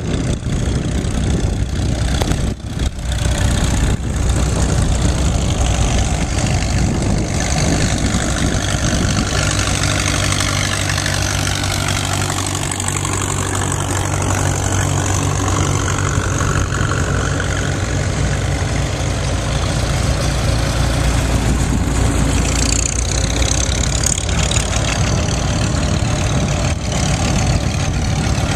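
Vintage farm tractors driving past one after another, their engines running steadily, each engine's note bending as it goes by.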